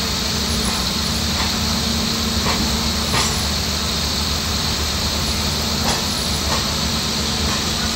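Steady railway running noise: an even rumble and hum that holds level throughout, with a few faint clicks scattered through it.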